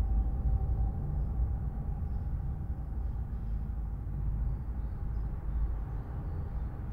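Steady low rumble of motorway traffic crossing the high concrete viaduct overhead, with a faint steady tyre hum.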